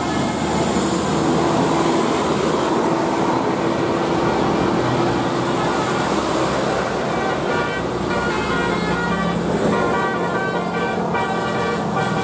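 A bus's telolet horn, a multi-tone musical air horn, sounding over engine and traffic noise. A note is held for the first few seconds, then a quick run of changing notes plays near the end.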